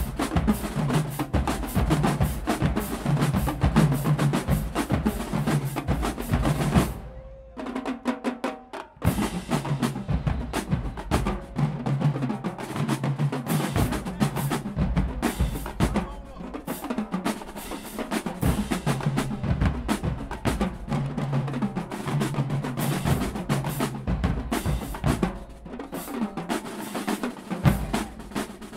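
Marching band drumline playing a fast cadence: snare drum rolls and rapid strikes over pitched bass drum and tenor drum notes. The playing nearly drops out for about two seconds around seven seconds in, then comes back in full.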